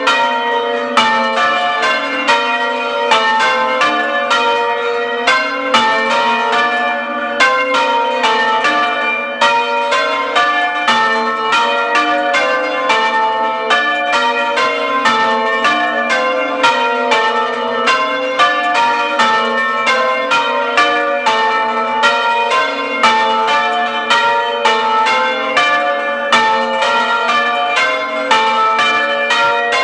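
A ring of church bells heard close up in the tower, rung open without muffles, in English change ringing: an unbroken, even stream of bell strikes, each ringing on under the next.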